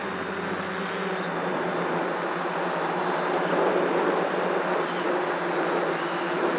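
Brushless motors and propellers of an F550 hexacopter buzzing steadily in flight, heard from a camera mounted on the frame close to the props. The buzz grows a little louder about two seconds in.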